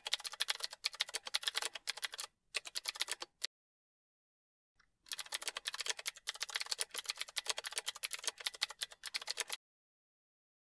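Typing sound effect: rapid keystroke clicks in two long runs, pausing for over a second about three and a half seconds in and stopping about a second before the end.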